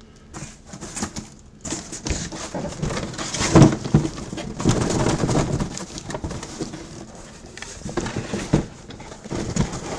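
Rustling and crinkling of plastic packaging with irregular knocks as boxed helmets and bagged jerseys are handled, with a louder thump about three and a half seconds in.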